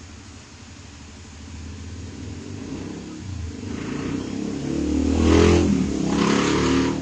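A motor vehicle driving past: its engine grows steadily louder over a few seconds, is loudest about five and a half seconds in, then starts to fade.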